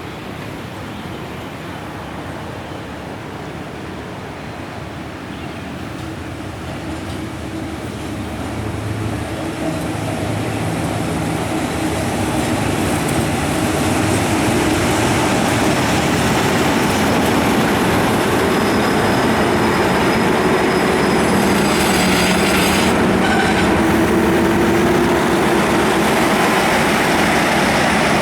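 Train on the tracks, its rumble growing steadily louder over about fourteen seconds and then holding steady, with a brief hiss about 22 seconds in.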